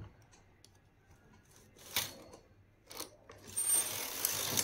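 Knitting machine carriage being pushed along the needle bed: a couple of sharp clicks, then a rattling slide of about a second and a half near the end as it runs across the needles.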